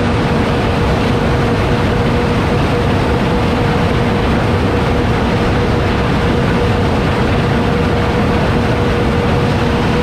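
John Deere S670 combine moving through a corn field, its engine and machinery making a loud, steady drone with a constant hum running through it.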